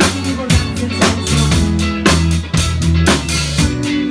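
Live band playing through a pub PA: electric guitar and bass over a drum kit keeping a steady beat, with drum hits about twice a second.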